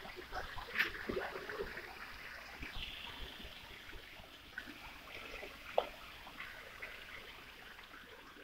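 Water from a tiered garden fountain splashing and trickling into its pool, a steady, moderate wash with small irregular splashes, fading slightly toward the end.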